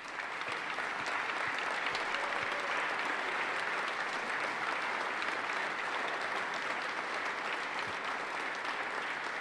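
Sustained applause from a large chamber audience of legislators, steady for several seconds before fading at the end.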